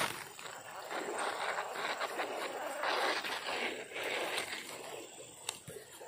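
Fast-flowing river water with the whir of a spinning reel being cranked as a casting lure is retrieved: an uneven hiss that swells and fades, with a few faint clicks.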